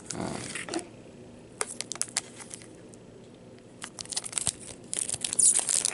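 Foil wrapper of a baseball card pack crinkling and crackling in the hands, quieter midway, then dense, louder crinkling near the end as the pack is torn open.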